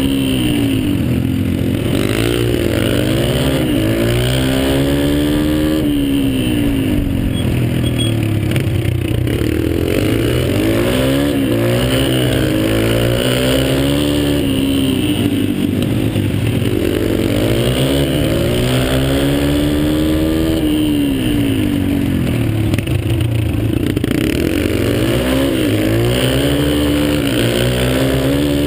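Dirt bike engines riding a motocross track, the pitch climbing and dropping again every few seconds as the throttle is opened and shut through the turns and gear changes.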